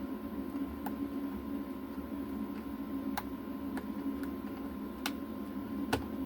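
Light, sharp clicks and taps of small hand tools on a circuit board while the LCD's pins are being freed: about five scattered clicks, the loudest near the end, over a steady low hum.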